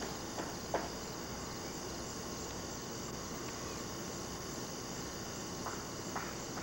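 Steady chorus of insects, crickets or the like, in an overgrown field, over a constant background hiss, with a few faint clicks: one about a second in and two near the end.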